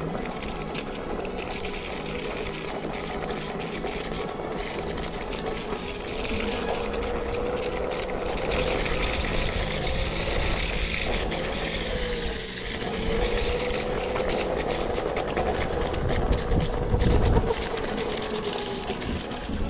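Electric one-wheel board rolling over wet gravel. The hub motor's whine wavers gently in pitch with speed over the steady crunch and rumble of the tyre on the stones. The rumble is loudest near the end.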